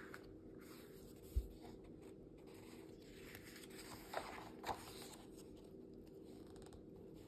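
Paper pages of a large softcover picture book being turned by hand: a soft thump about a second and a half in, then rustling and two quick paper swishes as the pages flip, over a faint steady hum.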